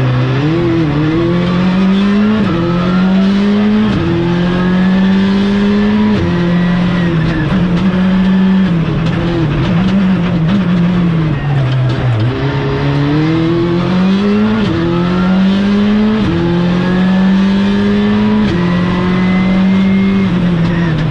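Skoda Fabia Rally2's turbocharged four-cylinder engine heard from inside the cabin, revving hard under full acceleration: the pitch climbs and drops sharply at each quick upshift. Around the middle the revs sag as the car slows for a bend, then climb again through the gears.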